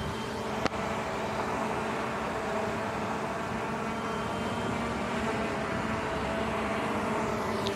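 Quadcopter drone hovering close by, its propellers giving a steady hum of several tones over constant road-traffic noise. A single sharp click comes just under a second in.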